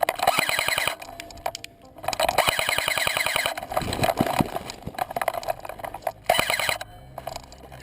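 Airsoft gun firing three bursts of rapid automatic fire, a clattering string of shots: about a second long, then about a second and a half, then a short burst near the end.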